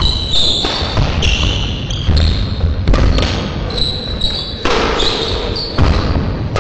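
Badminton rally: rackets striking the shuttlecock several times, with court shoes squeaking on the hall floor.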